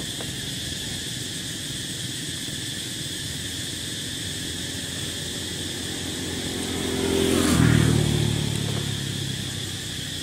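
A motor vehicle passes close by: its engine grows louder over a few seconds, peaks about seven and a half seconds in with a drop in pitch as it goes past, then fades. A steady high-pitched drone sits underneath throughout.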